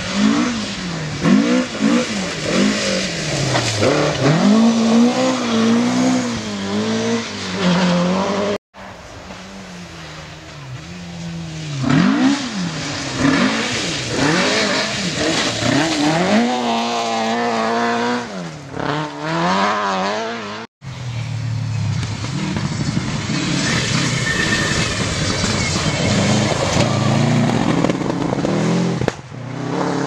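Rally cars at full effort on a loose gravel stage, their engines revving hard with pitch climbing and dropping again and again through gear changes and lifts off the throttle, over a hiss of tyres on gravel. The sound breaks off suddenly twice as one car's pass cuts to another; the middle pass is a Mk2 Ford Escort rally car, and the last car's engine note is steadier under the gravel hiss.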